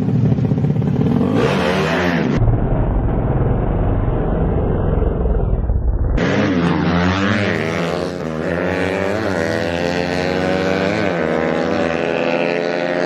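Small motorcycle engines revving up and down, with several quick blips of the throttle in the second half; the sound changes abruptly twice, as at edits.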